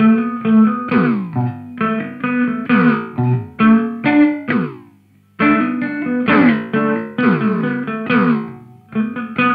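Electric guitar played through an Old Blood Noise Endeavors Dweller phase-repeater/delay pedal: a run of plucked notes and chords with repeats that slide down in pitch. The sound stops briefly about halfway through, then the playing picks up again.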